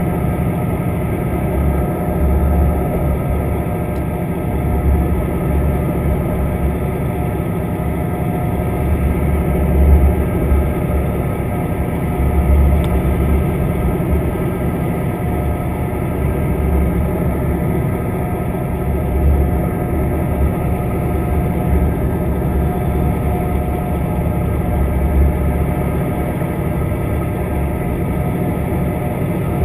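Steady engine hum carried through the water to an underwater camera, with a low throb that swells and fades unevenly.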